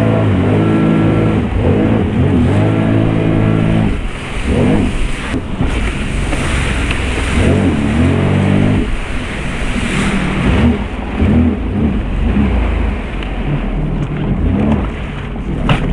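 Sea-Doo jet ski engine running hard and revving up and down, its pitch rising and falling as the craft turns, over the rush of water spray and wind.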